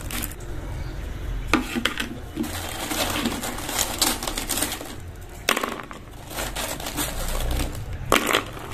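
Crisp fried pakoras rustling and clattering against each other and the bamboo basket as a hand picks them out and sets them on a plate, with a few sharp clicks.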